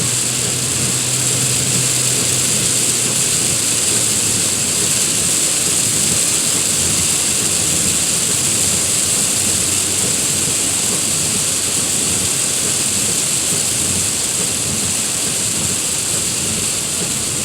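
Rain falling steadily, an even hiss that neither builds nor lets up.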